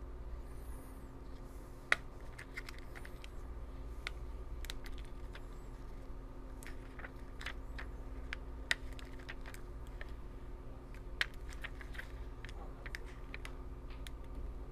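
Heat transfer vinyl being peeled off its clear carrier sheet by hand during weeding, giving scattered small crackles and clicks, a few of them sharper, over a faint steady hum.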